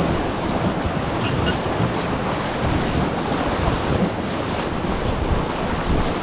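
Steady rush of whitewater on the Nenana River around a paddled raft, with wind buffeting the microphone.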